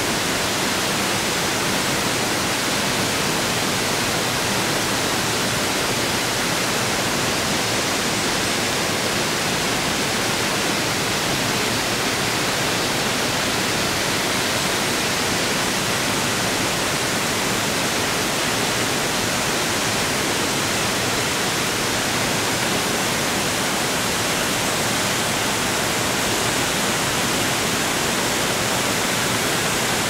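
Rio Espiritu Santo Waterfall plunging into its pool: a steady, even rush of falling water, mostly hiss with little low rumble.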